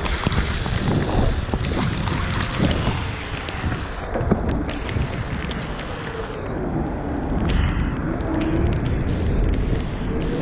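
Wind buffeting the microphone and tyres hissing on a wet road as a Weped Fold electric scooter rides through rain, with scattered sharp ticks of raindrops hitting the camera. About six seconds in, the scooter's hub motor whine falls in pitch and then rises again as it slows and picks up speed.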